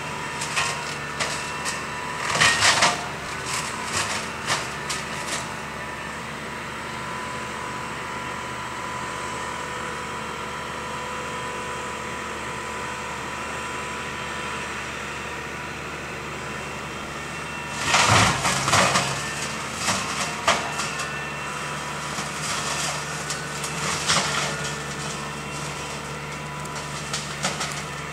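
A steady mechanical hum, like a motor running, with a few short bursts of crackling, crunching noise: one about two seconds in, a longer one a little past halfway, and two more near the end.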